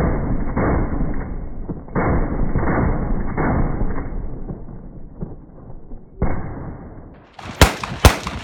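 HK-51 (7.62×51 mm) machine gun fire slowed down: deep, drawn-out booms about two-thirds of a second apart, fading over the first six seconds, with one more slowed boom after a short pause. Near the end the sound returns to full speed with three sharp gunshots, the loudest sounds here.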